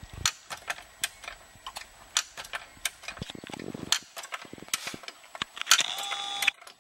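Hi-Lift jack being worked, its climbing pins clicking along the perforated steel bar about two or three times a second as it raises the rear of the car. A brief metallic squeal comes near the end.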